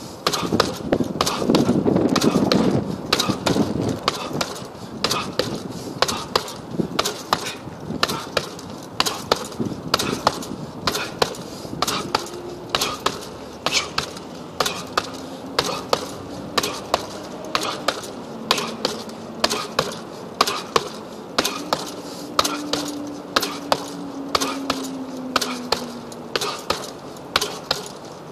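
Boxing-gloved punches landing on a hanging heavy bag: a fast, uneven run of sharp thuds, about two or three a second, with a louder burst of low rumbling noise about two seconds in.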